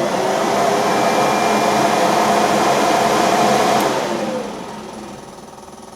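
Auxiliary electric radiator fan running steadily, then cut off about four seconds in and spinning down with a falling hum. It runs with the coolant cold because the temperature controller is wired to the wrong relay contacts.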